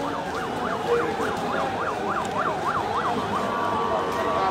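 Electronic siren yelping in fast up-and-down sweeps, about three a second, then switching a little past three seconds in to a steady held tone. Street noise sits underneath.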